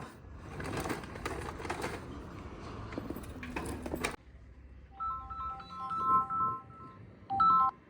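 A rustling, crackly handling noise that cuts off suddenly about four seconds in, followed by a mobile phone ringtone: a short electronic melody of clean beeping notes on a few pitches, repeating twice.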